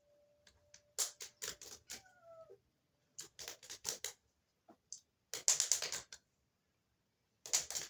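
Four short bursts of rapid sharp clicking and clattering, each under a second long, with a brief falling whine about two seconds in.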